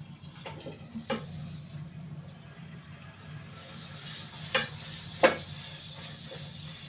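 Food frying in a pan, the sizzle starting about halfway through and then running steadily, with a few sharp knocks of a utensil against the pan. The loudest knock comes near the end.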